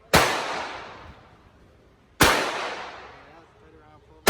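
Pistol fired slowly at a range: two shots about two seconds apart, with a third right at the end, each followed by a long echoing decay.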